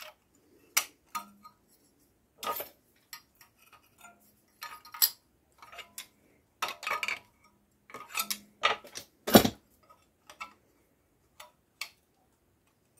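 Pieces of sheet steel clinking and tapping against each other and against a steel bench vise as they are handled and fitted together by hand. The sound is a scatter of irregular sharp clicks, with the loudest knock about nine and a half seconds in.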